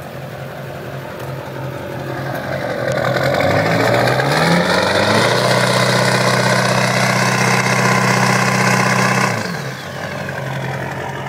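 Duramax 6.6 L V8 turbodiesel pickup idling, then revved up over about a second and a half and held at high revs for about four seconds, heard close to the exhaust tip. Near the end it drops back to idle. The rev is to roll black smoke from the exhaust.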